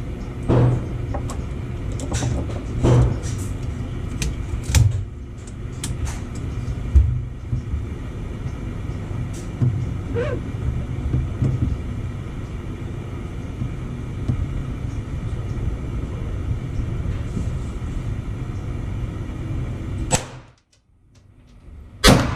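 Shooting range sound: a steady low rumble with scattered sharp cracks and knocks. The rumble drops away about twenty seconds in, and one loud sharp crack comes just before the end.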